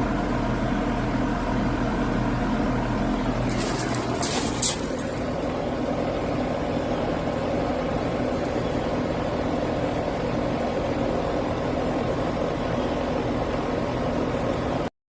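Goodman package air-conditioning unit running, its scroll compressor and fan giving a steady mechanical hum, powered up to measure its starting and running amps after a breaker trip. A brief high crackle comes about four seconds in, and the deepest hum drops out there.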